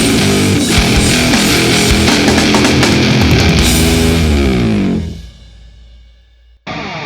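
Live rock band playing loud, heavy, distorted rock with electric guitars. About five seconds in the song ends and the last chord rings out and fades. Shortly before the end the sound breaks off abruptly and guitar playing starts again.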